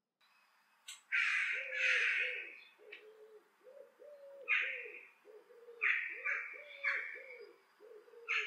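Crows cawing: a loud pair of caws about a second in, then single caws and short runs every second or so. Under them runs a low, steady series of repeated coos, about two a second.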